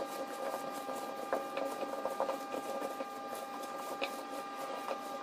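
Oiled potato wedges, tomatoes and onion being tossed by a gloved hand in a glass baking dish, with a few soft knocks of the pieces against the glass, over a steady electrical hum.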